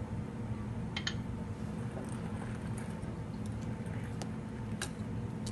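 Spatula stirring cream in a ceramic bowl: soft squishing with a few light clicks, over a steady low hum.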